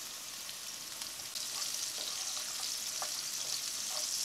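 Diced chorizo sizzling in hot olive oil in a nonstick pan, the sizzle growing louder about a second and a half in. A spatula stirs the pieces with a few light scrapes and taps.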